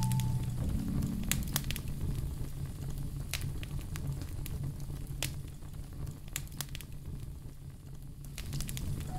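Wood fire crackling in a fireplace: scattered sharp pops and snaps over a low steady rumble.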